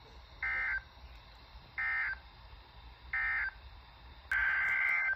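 Emergency Alert System SAME digital data bursts from a weather radio, harsh warbling buzzes: three short bursts about 1.4 s apart, the end-of-message code that closes a warning, then a longer burst starting about four seconds in.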